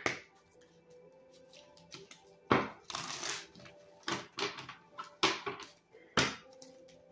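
A deck of tarot cards being shuffled by hand: a few short rustling bursts, the longest about two and a half seconds in, then shorter ones spaced about a second apart, over faint background music.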